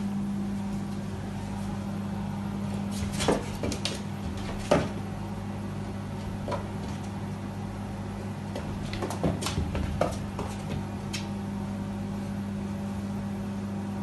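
A steady low hum with a dozen or so short, sharp taps and knocks scattered through it, the loudest about three and five seconds in.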